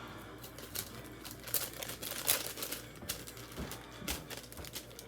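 Fluffy sand slime being squished and pressed by hand, giving irregular small clicks and crackles.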